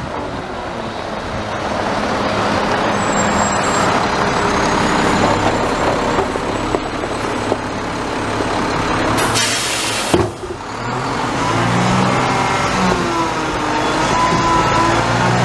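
Garbage truck running, with a sharp hiss of air brakes about nine seconds in lasting about a second. Afterwards the engine note rises and falls.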